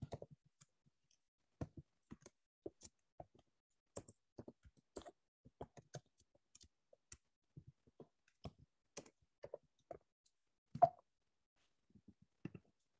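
Typing on a computer keyboard: faint, irregular key clicks, with one louder click near the end.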